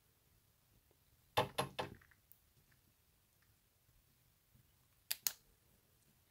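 A few short, sharp clicks in a quiet room: three close together about a second and a half in, and two more about five seconds in.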